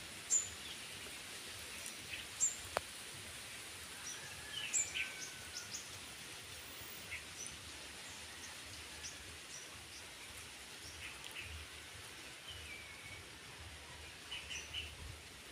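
Birds chirping and calling in short, scattered notes, some briefly sliding in pitch, over a steady outdoor background hiss.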